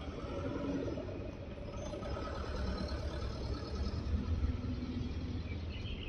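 Steady low rumble with outdoor background noise.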